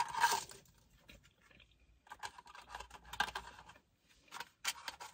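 Paper food wrapper and a cardboard fry carton rustling and crinkling as they are handled, in short irregular bursts.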